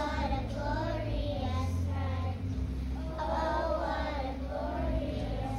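A group of young children singing a Christmas song together, over an instrumental accompaniment with a steady bass line.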